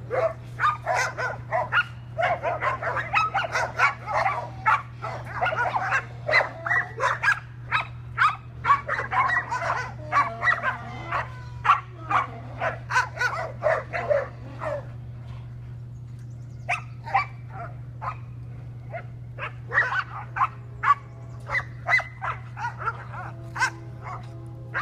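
Dogs barking excitedly: a rapid, dense run of barks for about fifteen seconds, a short pause, then sparser barks.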